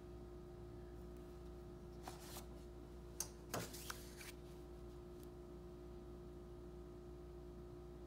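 Handling noise from an Everyman Grafton metal mechanical pencil turned in the fingers: a short rustle about two seconds in, then a few small clicks and scrapes around three and a half seconds. A steady low hum runs underneath.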